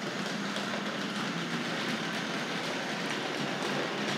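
Vintage Tri-ang OO-gauge model trains running on the layout: a steady electric motor hum with a fine clatter of wheels over the track.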